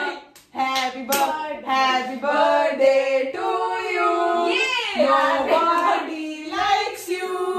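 Women's voices singing together, with long held notes, and a couple of hand claps in the first second or so.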